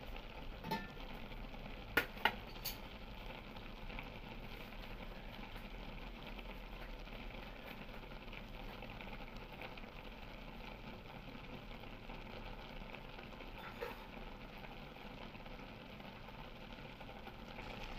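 Bokful (agati) flowers sizzling and bubbling in their own water in a steel wok as the liquid cooks off, a steady low hiss. A few light clicks about two seconds in.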